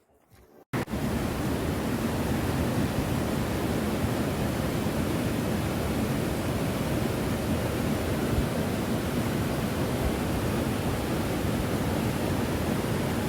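Waterfall: a steady, even rush of falling water. It starts abruptly under a second in, after a brief silence.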